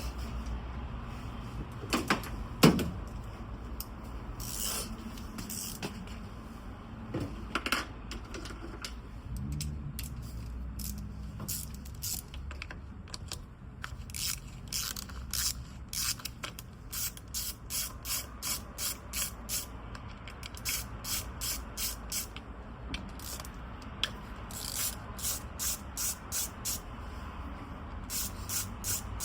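Ratchet wrench being worked in runs of clicking strokes, about two a second, with a couple of sharp knocks from tools or metal near the start.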